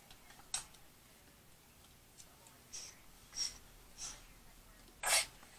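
A person sniffing sharply through the nose several times, a few short sniffs spread out, then a much louder snort near the end.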